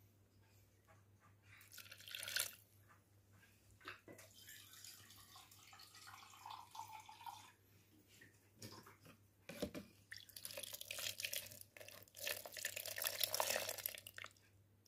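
Milky liquid splashing and dripping in a steel pot of freshly churned butter, in irregular bursts that are busiest in the last few seconds.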